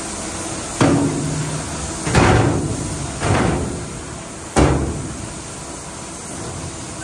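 Four heavy knocks at uneven intervals, each dying away briefly, over a steady background hum.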